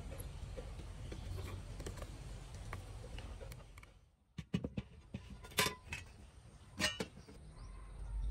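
Sharp metallic clinks and knocks from aluminium amplifier casing parts being handled, a few separate strikes in the second half. Before them, a steady low hum with faint ticks while a capacitor is soldered onto the circuit board.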